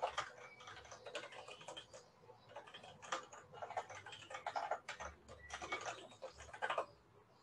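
Typing on a computer keyboard: a run of quick, uneven key clicks that stops near the end.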